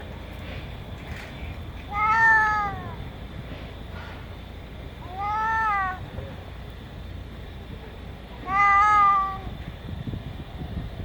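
A domestic cat meowing three times, a few seconds apart. Each meow lasts under a second and rises then falls in pitch, over a steady low background rumble.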